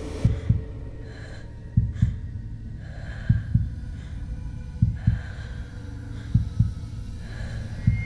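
Slow heartbeat sound effect: a double low thud, lub-dub, about every one and a half seconds, five times over a steady low drone.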